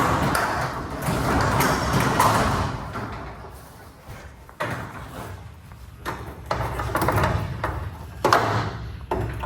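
Sectional garage door moving along its metal tracks: a rumble of rollers for the first few seconds, then a series of knocks and shorter rattles.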